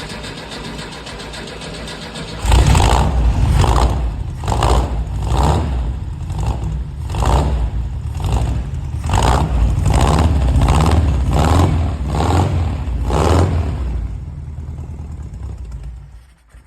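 Air-cooled flat-four engine of a VW T2 camper bus running steadily, then about two and a half seconds in it gets much louder and is revved in repeated surges, about one a second, for some ten seconds. Near the end it eases off and fades.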